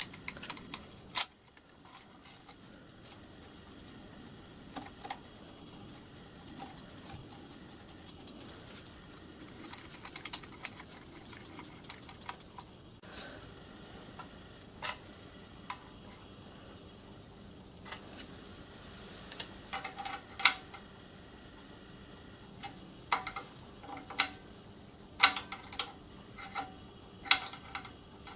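Light metallic clicks and taps from a copper pipe and its brass fittings being handled and fitted onto a miniature steam locomotive's boiler backhead. They come in scattered ones and twos, with a quicker cluster of sharper, slightly ringing clicks near the end.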